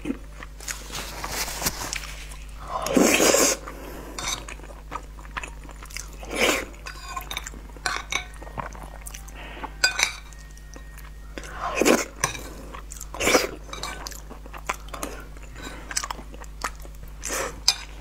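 Close-miked eating sounds: chewing and wet mouth clicks, with a metal spoon scraping and clinking against a ceramic bowl. Several louder bursts stand out, about 3, 6.5, 12 and 13 seconds in.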